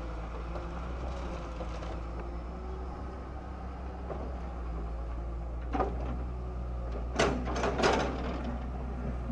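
A Samsung wheeled excavator's diesel engine running steadily while it loads road rubble into a dump truck, with a knock a little before six seconds in and a burst of loud clattering knocks near the end as the bucket works the broken bricks and debris.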